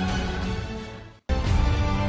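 Background music: one track fades out about a second in, there is a brief silence, then a different track starts abruptly.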